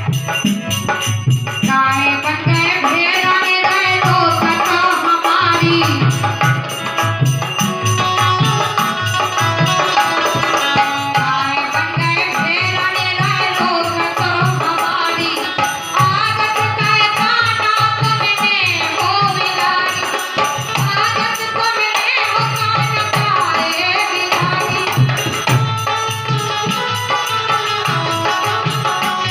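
Kartik geet, a Hindi folk devotional song: a woman singing over a drum and rattling percussion that keep a steady beat.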